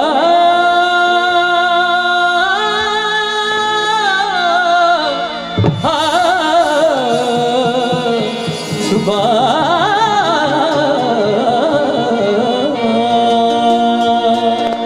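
Live Punjabi Christian devotional song: harmonium and a man's voice hold long notes that step up and back down. From about six seconds in, the voice turns to a wavering, ornamented wordless line over harmonium, dholak and acoustic guitar.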